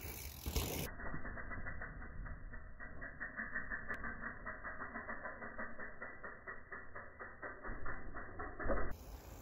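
Mountain bike's rear freehub ticking in an even rhythm, slowed down with the slow-motion jump to a deep, dull clicking of about five ticks a second over low rumble. About a second in the sound drops into the slowed version, and just before the end it returns to normal speed.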